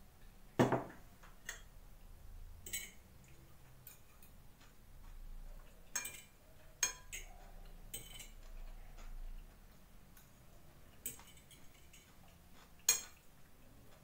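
A mug set down on a table with a knock just under a second in, then a fork clinking and scraping against a plate several times at irregular intervals.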